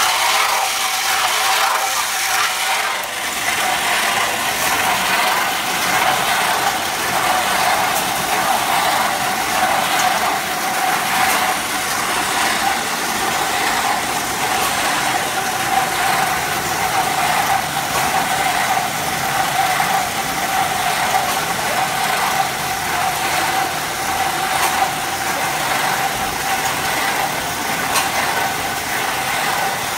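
Loynds 50 kg chocolate refiner conche running, its electric gear motor turning the refiner: a steady mechanical whir with a constant mid-pitched whine.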